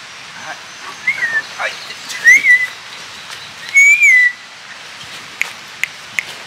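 A dog whining: three short, high whines, each rising then falling, spread over about three seconds. A few sharp clicks follow near the end.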